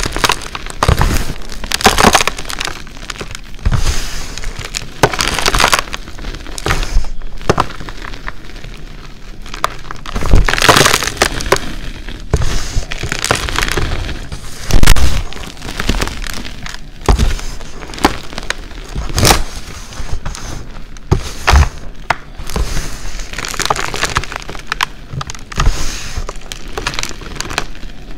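Hands squeezing and crushing reformed gym chalk mixed with glitter: the chalk clumps crunch and crumble into powder in repeated bursts, about one every second or two.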